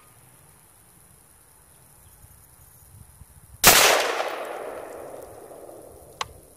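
A single 5.56 NATO rifle shot from an AR-15 with a 20-inch barrel and rifle-length gas system, a little past halfway through. Its report echoes and dies away over about two seconds. A short sharp click follows near the end.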